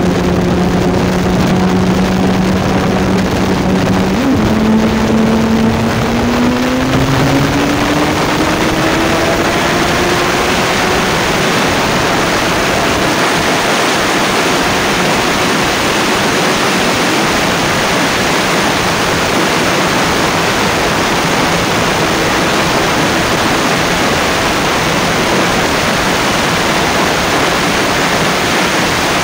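Kawasaki ZZR1400's inline-four engine pulling hard at very high speed. Its note climbs steadily over the first several seconds as the bike accelerates, then is buried under loud, steady wind rush on the microphone.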